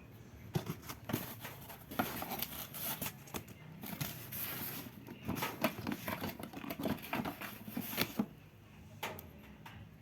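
Irregular rustling, clicks and knocks, as of things being handled, running for about eight seconds before dying down.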